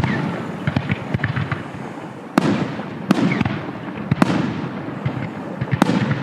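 Fireworks display: aerial shells bursting with five sharp bangs a second or so apart, with smaller pops and crackling between them.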